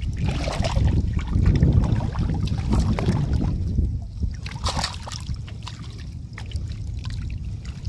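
Shallow water sloshing and splashing as a current net is worked by hand in a flooded, grassy river edge, with scattered short splashes over a low rumble.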